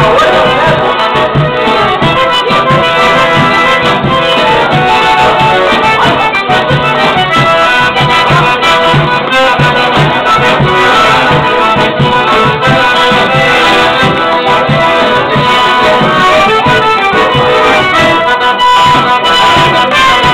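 Gaita (accordion) playing a milonga live, with a steady bass beat underneath.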